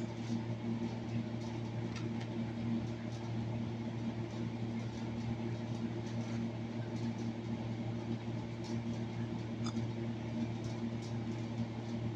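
A steady low machine hum with several even tones, from a running kitchen appliance or fan, and a few faint soft clicks and rustles as hands tear and handle samoli bread.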